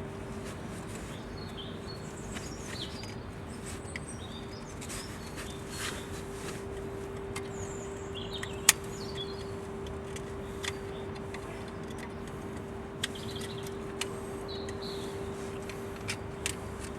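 Small metallic clicks from a brake caliper's pad retaining spring clip being worked out by hand, with one sharper click about nine seconds in. A steady hum and faint bird chirps run underneath.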